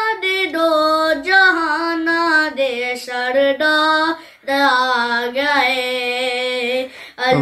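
A boy's solo singing voice performing a Punjabi naat in long, drawn-out melodic phrases, with a short breath break about four and a half seconds in and another near the end.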